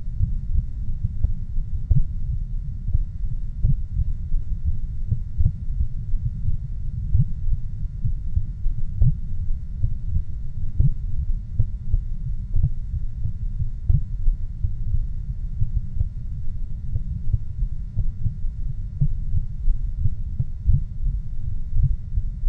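Produced ocean-themed ambient soundscape: a deep, steady low rumble with many irregular soft thuds, like a heartbeat, and faint steady high tones above it.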